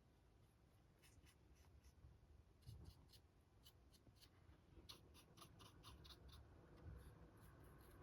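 Near silence with faint, small scratchy ticks of a paintbrush working acrylic paint onto a 3D-printed model, coming in loose clusters from about a second in.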